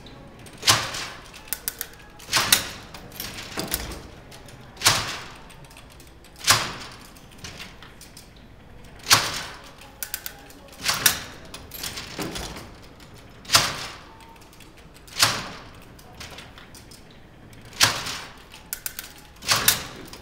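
Charles Babbage's Difference Engine No. 2 (the working replica) being hand-cranked through its calculating cycle: its metal mechanism gives a sharp clack about every one and a half to two and a half seconds, with lighter clicking in between.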